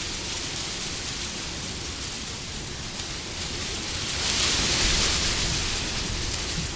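Wind blowing as a steady rushing noise that swells into a louder gust about four seconds in, then eases back.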